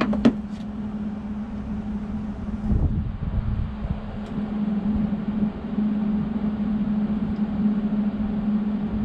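A steady mechanical hum, with a few quick metallic clicks right at the start from a ratchet wrench being worked on a stuck bolt.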